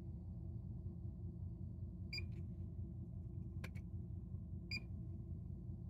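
Short electronic beeps about every two and a half seconds from a Fluke 1587 FC insulation multimeter during an insulation test on a wire that reads zero. A steady low hum runs underneath, and there is one sharp click between the beeps.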